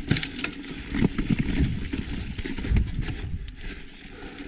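Mountain bike riding over rough, rocky trail: irregular knocks and rattles from the tyres and bike hitting rocks, over a steady rush of riding noise, busiest about a second in.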